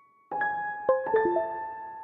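Background keyboard music: after a brief pause, a short run of struck notes that ring on and fade slowly.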